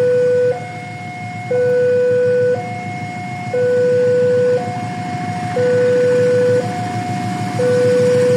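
Railway level-crossing warning alarm sounding: an electronic two-tone signal alternating between a lower and a higher tone about once a second, warning that a train is approaching.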